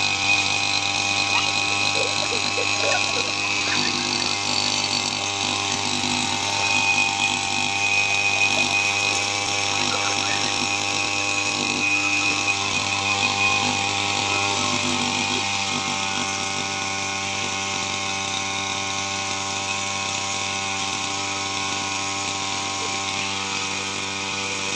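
Petrol brush cutter (string trimmer) engine running steadily at working speed while cutting grass, a little louder in the first half.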